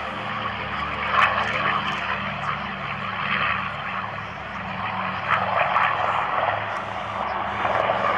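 Radial piston engines of Douglas C-47/DC-3 transports at takeoff power, a steady propeller drone with a low engine hum beneath it as the aircraft roll and lift off. A few short louder crackles come through it.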